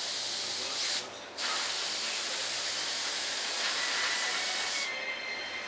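Gravity-feed spray gun hissing as it sprays white paint: a short burst of about a second, a brief pause, then a longer steady burst that cuts off near the end.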